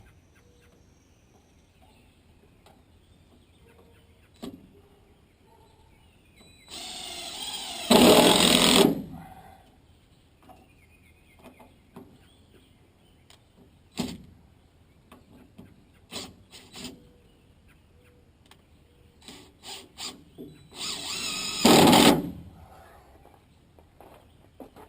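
Power drill running in two spells of about two seconds each, the second about twelve seconds after the first, each getting louder partway through, as in driving fasteners home. Short knocks and clicks of handling lie between.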